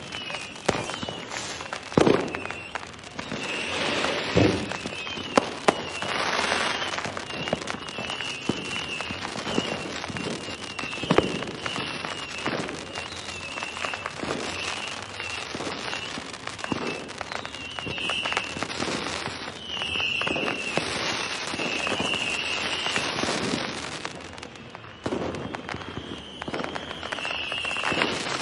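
New Year's Eve fireworks and firecrackers going off in many scattered bangs and cracks over a constant crackle, with a wavering high-pitched tone coming and going throughout.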